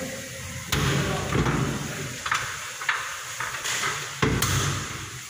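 Aluminium cabinet doors being handled, giving two sharp knocks, about a second in and again about four seconds in, with a person talking in between.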